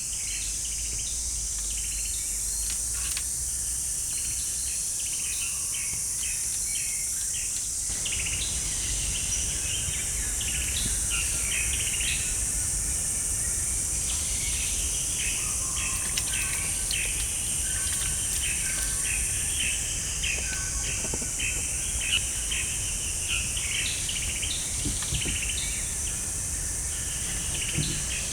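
Outdoor woodland ambience: many birds chirping and calling over a steady high-pitched drone of insects. A few faint clicks and knocks come near the end.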